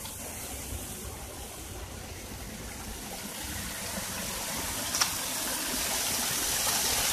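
Small artificial rock waterfall splashing steadily into a pebble-lined basin, growing louder toward the end. There is one short click about five seconds in.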